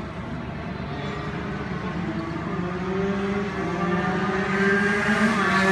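Race engine running at steady, high revs, growing steadily louder as it approaches.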